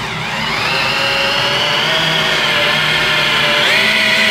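Cordless drill running in reverse, driving a Grabit Speedout screw extractor into a rusted, rounded-off screw head under a hard load. The motor whine rises in pitch as it spins up, holds steady, then steps a little higher just before the end.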